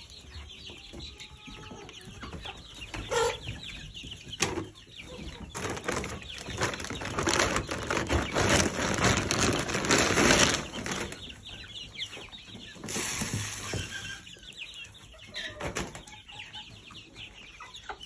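Free-range chickens clucking, with a few short calls early on. Midway there is a stretch of loud rustling noise that peaks and then dies away.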